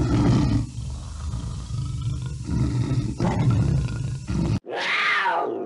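Recorded big-cat growls and roars: a low, rumbling growl in several pulses that cuts off suddenly about four and a half seconds in. After a brief gap comes a short roar falling in pitch.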